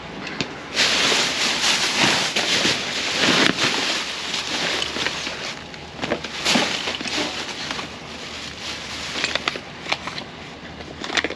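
Plastic trash bags and bubble wrap crinkling as they are rummaged through by hand in a dumpster. The crinkling is loudest and densest in the first few seconds, then comes in shorter bursts with a few sharp clicks near the end.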